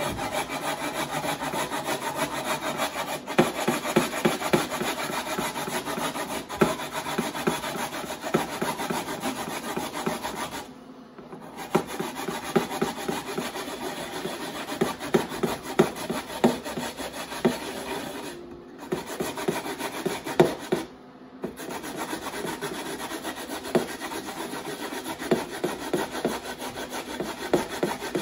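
Raw peeled potato being grated by hand on a metal hand grater: continuous rapid rasping strokes, pausing briefly three times as the potato is shifted. The potato is being grated down into pulp for râpé.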